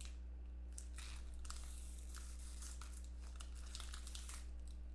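Foil wrapper of a trading card pack being torn open and crinkled in the hands: irregular crackling and rustling.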